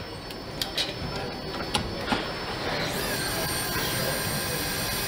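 Factory production-line machinery noise: a few sharp clicks and knocks over a noisy background, then about three seconds in a steady machine hum with several high, steady whining tones.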